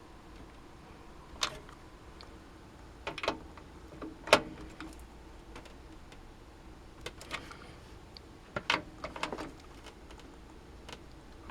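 Screwdriver tightening the motherboard mounting screws into the PC case: scattered light clicks and taps of metal on metal, a few at a time with pauses between.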